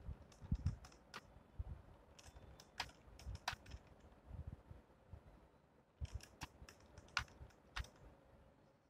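Typing on a computer keyboard: key clicks in short, uneven runs as text is typed and deleted, easing off for a couple of seconds around the middle.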